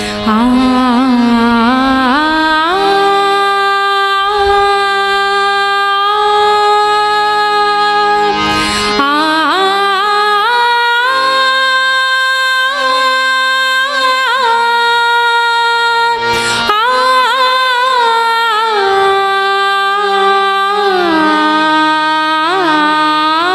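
A woman singing a long wordless 'aa' alaap in a devotional bhajan, holding each note and sliding up and down between pitches, over a steady low drone.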